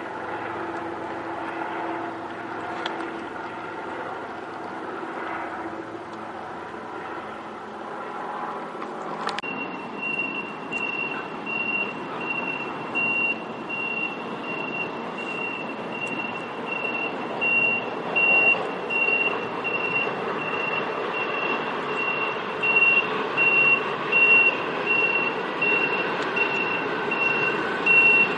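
A small piston helicopter's rotor and engine running overhead, then a sudden cut to a hi-rail maintenance truck on the rails. The truck's backup alarm beeps steadily over its diesel engine, which grows louder near the end.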